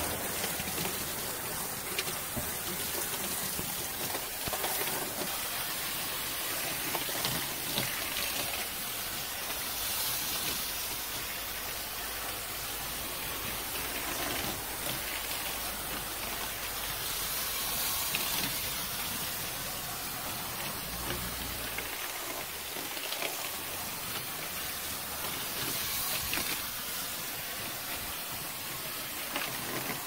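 Garden hose spraying water through an air-conditioner condenser's coil fins, a steady hiss and patter of water rinsing out the coil cleaner and grime.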